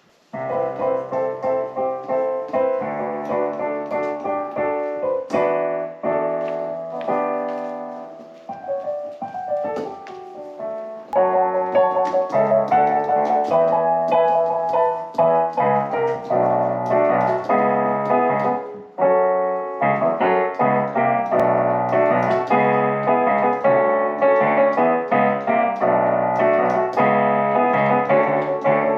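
Yamaha P-45 digital piano being played: chords and a melody, softer for a few seconds about a third of the way in, then louder, with a brief break about two-thirds through.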